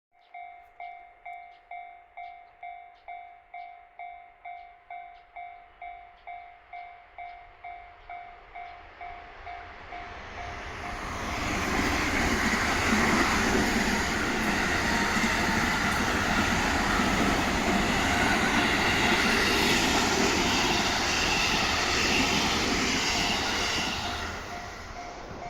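Japanese railway level-crossing warning bell ringing in even strikes, about two a second. About ten seconds in, a passing train's running noise swells up and drowns the bell for some twelve seconds, then eases near the end, when the bell is heard again.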